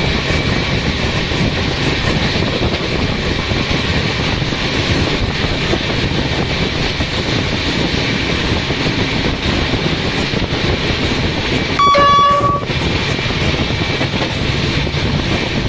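Express train running at speed, heard from an open coach door: a steady rush of wind and wheel noise on the rails, with one short locomotive horn blast about twelve seconds in.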